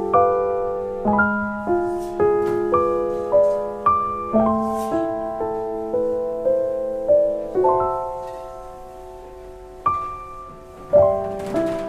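Solo piano music: struck notes and chords about every half second, then a held chord fading away before new notes come in near the end.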